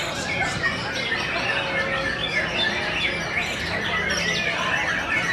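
Many white-rumped shamas singing at once, a dense chorus of overlapping whistled notes sliding up and down.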